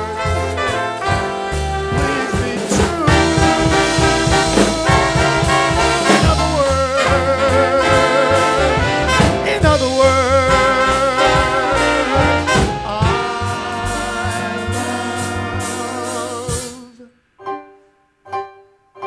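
Live swing band with trumpet, saxophone, upright bass and drums playing the closing bars of a song, with the male singer's voice held over the brass. The band cuts off sharply about 17 seconds in, followed by a few short faint sounds.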